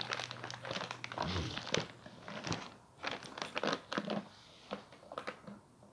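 Plastic wrapping and brown packing paper crinkling and rustling as a clear acrylic overflow box is handled. The sound comes in irregular crackles and light taps, thinning out after the first couple of seconds.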